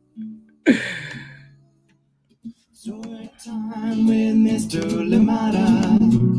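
A short sound about a second in, then, after a brief pause, a theme song starts about three seconds in: guitar with singing.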